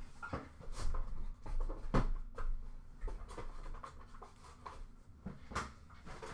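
Scattered light taps and rustles of hands handling trading cards and foil pack wrappers, with a few sharper clicks spread across the stretch.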